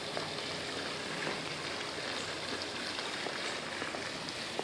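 Steady rushing splash of water falling from the pool's water feature into the pool.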